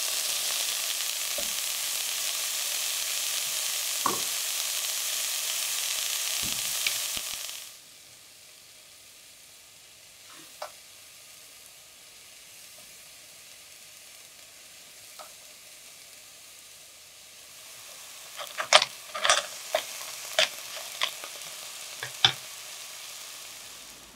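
Mushrooms and clams sizzling in oil in an enamel pot, stirred with a wooden spatula, for about the first eight seconds; the sizzling then cuts off sharply. A quiet stretch with a few faint taps follows, and near the end comes a quick run of sharp clicks and knocks.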